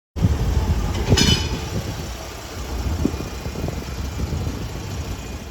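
Vehicle engine running with a steady low rumble, with one short sharp sound about a second in.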